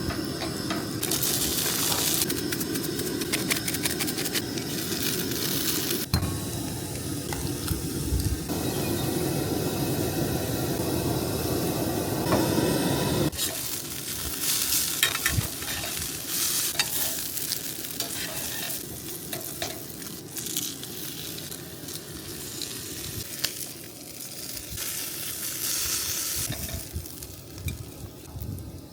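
Food sizzling as it fries in a pan, with a utensil stirring, in a few short edited segments.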